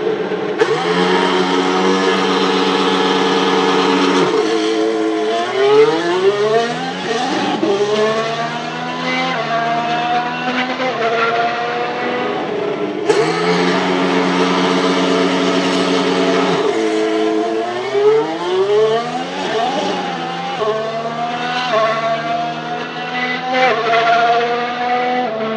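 Renault E-Tech 19 turbocharged V6 hybrid engine of a McLaren MCL34 Formula 1 car doing practice starts. The revs are held steady for about four seconds, then the car launches and accelerates away through quick upshifts, the pitch climbing and dropping back with each gear. A second start, with the same held revs and launch, cuts in suddenly about halfway through.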